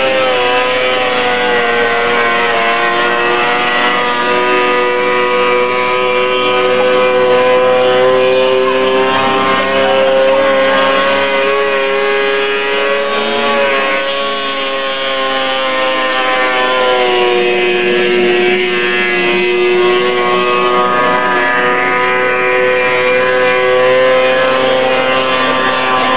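Snowmobile engine held at high revs as it skims across open water. The pitch stays high and steady, wavering slightly and sagging briefly a couple of times.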